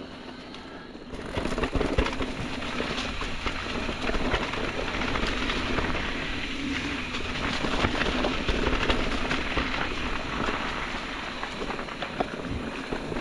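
Electric mountain bike riding fast over leaf-covered dirt singletrack: tyres rolling and crunching through dry leaves, with the bike rattling and many small clicks and knocks. The noise picks up about a second in.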